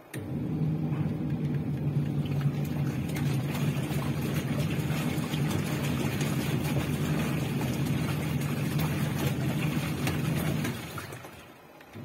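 Washing machine running: a steady low hum under a dense rushing noise. It starts suddenly and fades out near the end.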